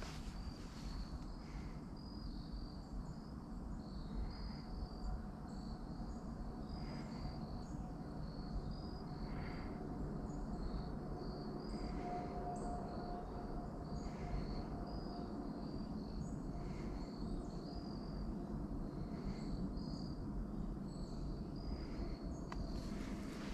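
Quiet outdoor woodland ambience: a steady low rumble, with faint, rapid high-pitched chirping repeating throughout.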